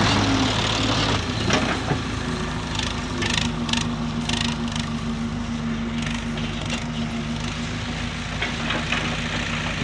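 Kobelco Yutani hydraulic excavator's diesel engine running steadily under load while the bucket digs into soil, with a few sharp knocks from the bucket and its linkage.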